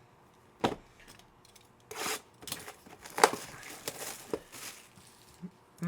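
Plastic trading-card packaging being torn open and crinkled, with a sharp click under a second in and scattered rustles and snaps after about two seconds.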